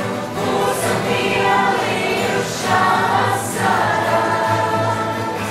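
Large ensemble of acoustic guitars playing together, with many voices singing along as a choir.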